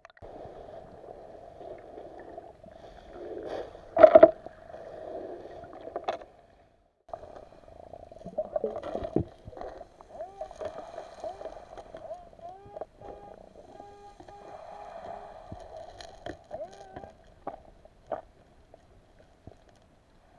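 Underwater sound picked up by a camera in a waterproof housing: a steady hum with scattered clicks and knocks, the loudest about four seconds in, as a metal-detector coil is swept over a pebble seabed. Through the middle there are some short wavering tones.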